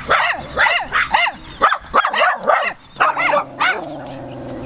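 Small dogs yapping, a rapid run of short, high-pitched barks several times a second that tails off about three-quarters of the way through.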